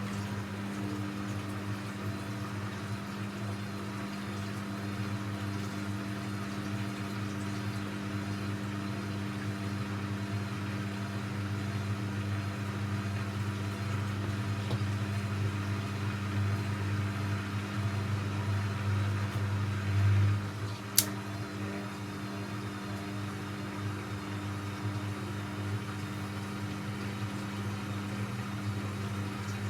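Techwood WB 91042I washing machine running mid-cycle: a steady low electric hum, swelling slightly and easing off about twenty seconds in, followed by a single sharp click.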